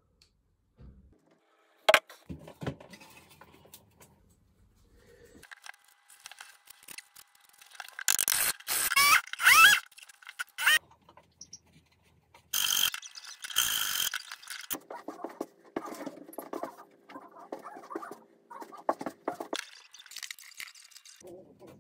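Hand tools working on plywood: irregular bursts of scraping and clicking separated by short pauses, with a sharp click about two seconds in and a brief squeak near the middle.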